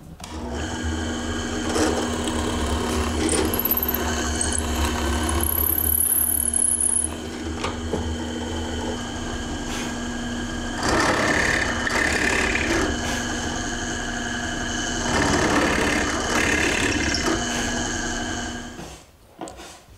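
Drill press motor running steadily, its bit boring into a wooden table rail in two noisier stretches, about eleven and fifteen seconds in; the motor stops near the end.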